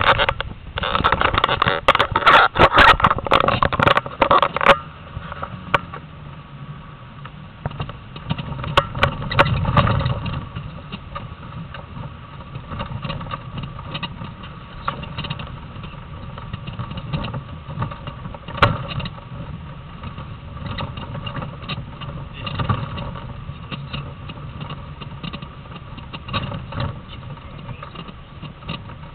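Land Rover Defender's engine running at low speed off-road, heard from inside the cab, with frequent knocks and rattles as it crosses rough grass tracks. The first few seconds are louder, with heavy clatter.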